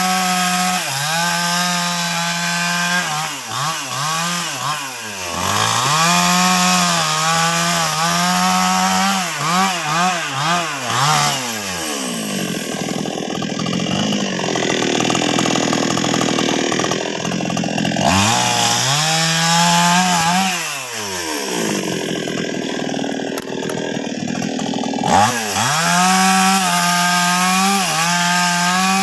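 NWESST 628 two-stroke chainsaw cutting sengon logs, its engine pitch sagging as the chain bites into the wood and climbing again as it revs up. Midway there are longer stretches of rougher, noisier cutting.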